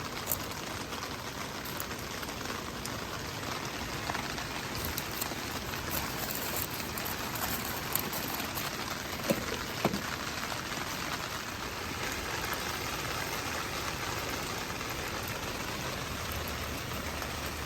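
Steady rain falling, with a few brief sharp taps, the loudest about halfway through.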